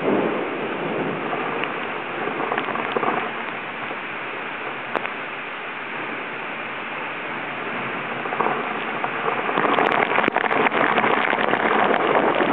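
Hurricane wind and rain on the microphone of a waterproof compact camera left out in the storm: a steady rushing noise that grows louder and gustier about three-quarters of the way through, with scattered sharp taps.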